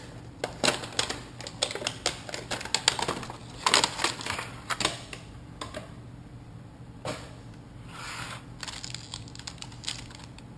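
Packaging being opened and handled: a cardboard box and a clear plastic blister tray of action-camera mounts, giving a quick run of clicks, taps and plastic crinkles, busiest in the first half.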